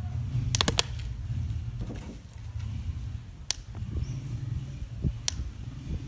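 A spoon stirring the detergent mix in a container: a low continuous rumble with a few sharp ticks, three in quick succession about half a second in and single ones later.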